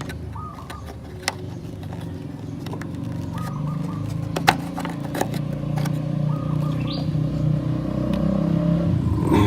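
A motor vehicle engine running steadily, growing a little louder partway through, with a few sharp metallic clicks.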